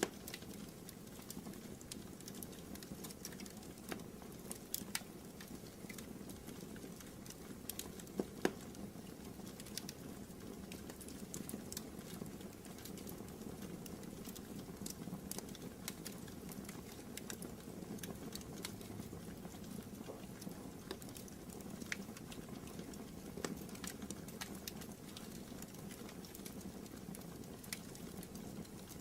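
Wood fire burning in a fireplace: irregular crackles and sharp pops over a steady low rumble, with the loudest pop about eight seconds in.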